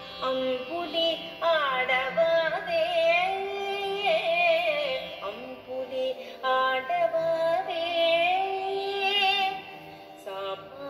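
A Carnatic song: a sung melody with wavering, ornamented pitch glides over a steady drone, in phrases with short breaks between them.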